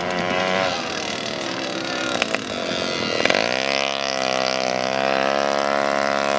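Small two-stroke single-speed moped engines buzzing on a dirt race course. About three seconds in, one engine revs up with a rising pitch and then holds a steady high buzz as it passes close by.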